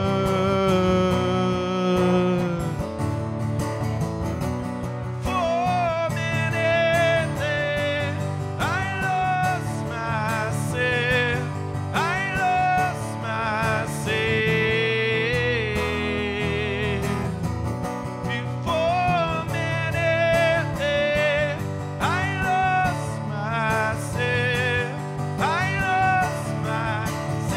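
A man singing live to his own acoustic guitar: a slow melody with wavering held notes and notes slid up into, over sustained guitar chords.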